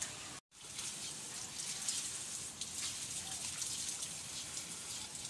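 Steady hiss of falling water, with a brief dropout about half a second in.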